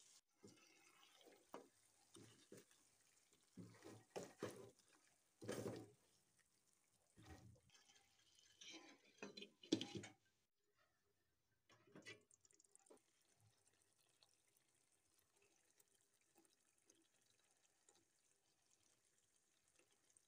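Faint, scattered knocks and clatters of cookware on a wok of simmering chicken masala, with a sharper clink about ten seconds in as the glass lid goes on. After that, mostly near silence with a few faint clicks.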